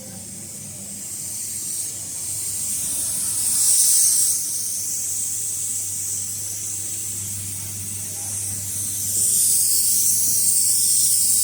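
Compressed air hissing from a pneumatic ultrasonic breathing-valve welding machine, swelling about four seconds in and again near the end, over a faint low steady hum.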